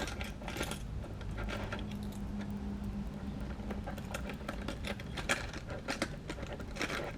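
Scattered light clicks and clatter of a hard plastic fishing lure with treble hooks and its plastic packaging being handled and put back together.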